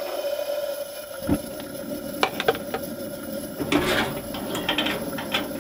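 Coleman pressurized liquid-fuel camp stove being lit: a few sharp clicks and knocks, then a rush of noise about four seconds in as the burner catches and flares up before it settles to a blue flame.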